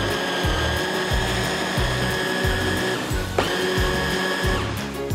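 SMEG hand blender motor whirring in its chopper bowl, pureeing chickpeas, tahini and lemon juice into hummus. The steady whine stops about three seconds in, runs again after a brief pause and stops shortly before the end, over background music with a steady beat.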